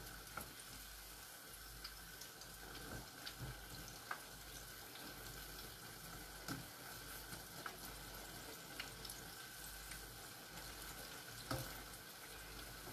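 Battered sweet potato fritters deep-frying in hot oil: a faint, steady sizzle with occasional small pops.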